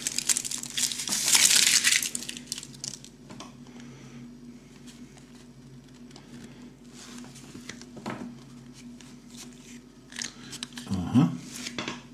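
Thin foil wrapper of a Kinder Surprise chocolate egg crinkling as it is peeled off, loud for the first two seconds or so, followed by quieter handling of the chocolate egg with a few small clicks and a sharper crack near the end as the chocolate shell is broken open.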